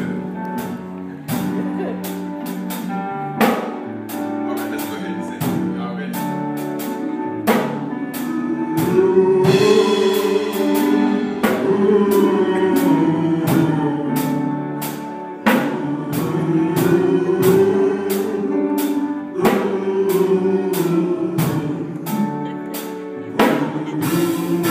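A male gospel vocal group singing in harmony through microphones, backed by a band with a steady drum beat.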